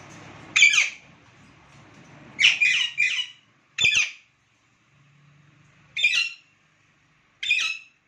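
Caged Alexandrine parakeets giving short, harsh squawks: one call, a quick run of three, then three more single calls spaced a couple of seconds apart.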